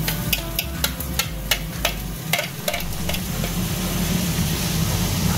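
Spaghetti squash being stirred and tossed with a wooden spoon in a hot frying pan, sizzling: a quick run of sharp clicks and knocks in the first couple of seconds, then a steady sizzle.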